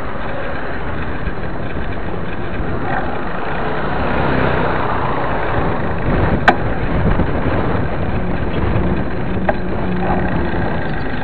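Steady rushing noise of a mountain bike being ridden on a paved road: wind on the bike-mounted camera's microphone and tyre noise. A sharp click sounds about six and a half seconds in, and a fainter one about three seconds later.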